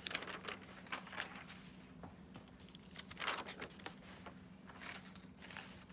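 Faint rustling of newspaper sheets being picked up and carried off, in a few soft swishes, over a low steady hum.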